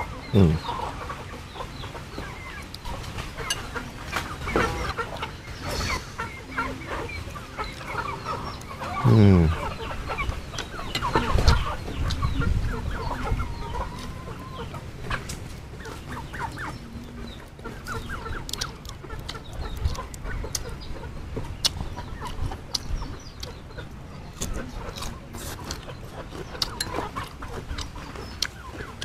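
Domestic chickens clucking, with short calls scattered through. Two loud falling-pitch sounds, one right at the start and one about nine seconds in, and a low thump about eleven seconds in stand out.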